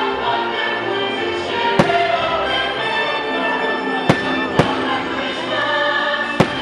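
Fireworks show: the show's orchestral and choral soundtrack plays steadily over the park speakers, cut by four sharp firework shell bangs, one about two seconds in, two close together just past the middle, and one near the end.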